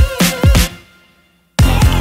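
Electronic dance music with a heavy kick-drum beat. It fades out to a brief silence and then comes back in abruptly near the end.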